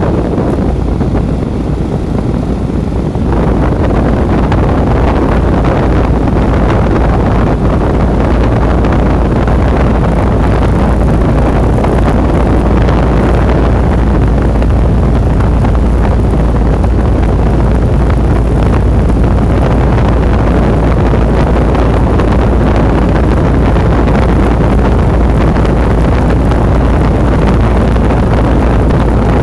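Lennox package heat pump running in cool mode, a steady machine rumble with its fan's airflow buffeting the microphone; the sound steps up louder about three seconds in.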